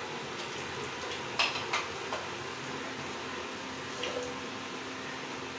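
Steel ladle clinking against a kadai a few times, two sharp clinks close together about a second and a half in, then fainter ones, over a steady hiss.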